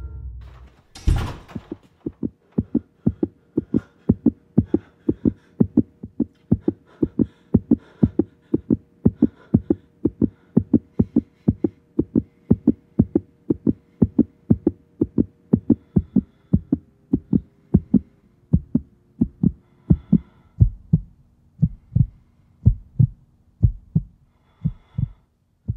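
A heartbeat sound effect: a sharp hit about a second in, then steady low heartbeat thumps about two a second. Under them runs a held tone that steps down in pitch several times, ending with the beats just before the end.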